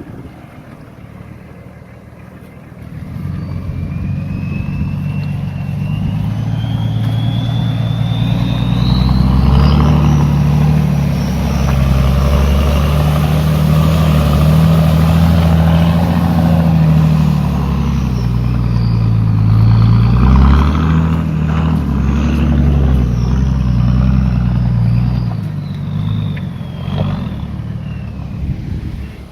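Nissan Patrol Y61's 2.8-litre six-cylinder turbo-diesel running loud through a straight-through stainless steel exhaust. A turbo whistle rises in pitch as the engine pulls harder over the first several seconds, holds, then falls away as the engine eases off near the end.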